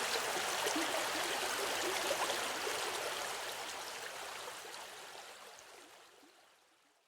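Running river water: a steady rush with small splashes and gurgles, which fades out slowly from about three seconds in until it is gone near the end.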